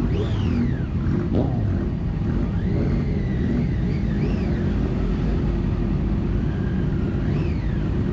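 Triumph Daytona 675R's inline-three engine running under way, with heavy wind rumble on the microphone and a whine that rises and falls in pitch as the throttle opens and closes.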